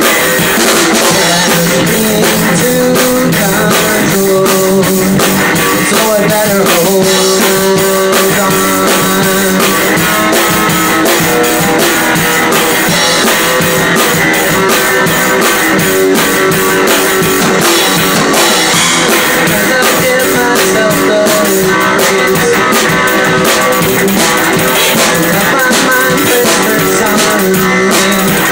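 Live band music played loud, led by a drum kit close by: drums and cymbals keeping a steady rock beat under sustained pitched parts.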